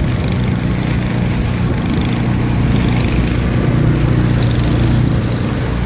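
Small boat's engine running steadily, with a noise of wind and water over it; it grows a little louder about halfway through.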